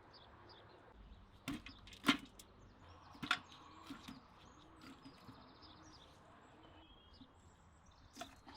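A handful of sharp clicks and knocks from cooking work, the loudest about two seconds in, over faint bird chirps in the background.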